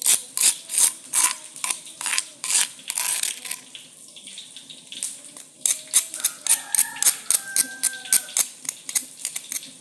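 Kitchen utensil knocking hard and repeatedly on a kitchen surface, sharp taps about three a second in two runs with a pause of about two seconds between them; some of the later taps ring briefly.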